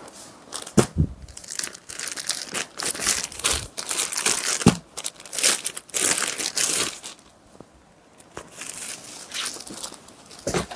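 Clear plastic packaging crinkling in irregular bursts as a folded saree is handled and pulled out of its bag, with a short lull about seven seconds in.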